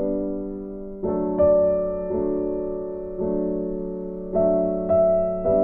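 Background music: a slow piano tune, with notes and chords struck about once a second and left to ring.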